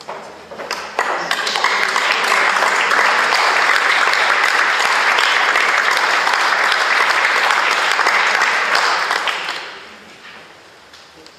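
Audience applause: a few scattered claps, then a full, steady round of clapping from about a second in, dying away shortly before the end.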